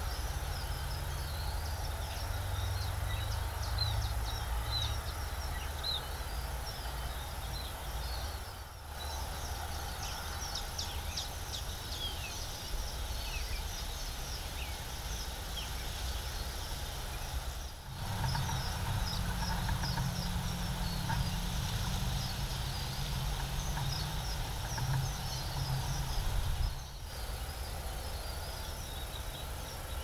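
Outdoor ambience of small birds chirping rapidly and repeatedly, busiest in the first half, over a steady low rumble and a thin, steady high-pitched tone.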